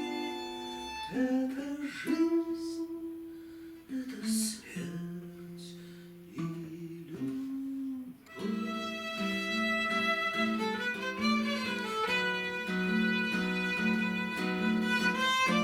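Instrumental passage of a song with no singing: a melody with some sliding notes over held chords, growing fuller about halfway through.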